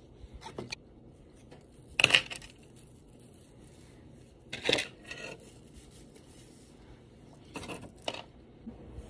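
Velcro hair rollers being pulled out of hair one after another, each pull a short rip-like rustle. There are four main pulls a few seconds apart, with a couple of smaller ones near the start.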